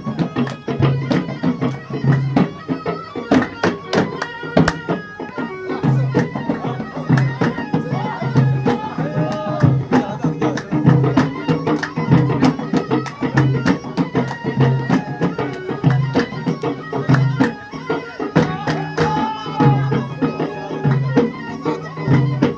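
Traditional folk music with a steady drum beat: about one low drum stroke a second, sharp percussion hits between, and a melody over it.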